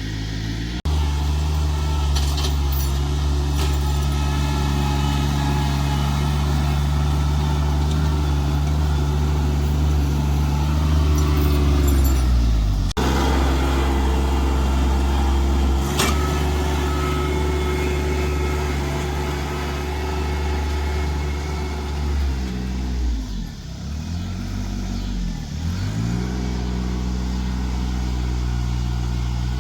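A vehicle engine running steadily, with sudden breaks about a second in and again near thirteen seconds. Around twenty-three seconds the engine slows, its pitch dropping and then rising again before it settles back to a steady run.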